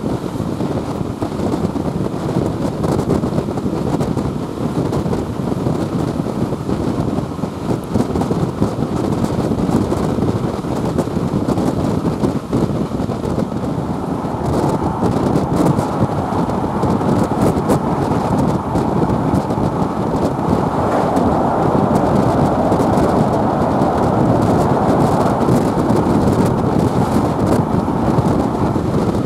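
Train running at speed, heard from an open window: a steady rumble of wheels and rail with wind buffeting the microphone, growing slightly louder in the second half.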